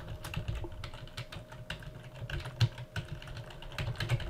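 Computer keyboard being typed on: a quick, uneven run of keystrokes.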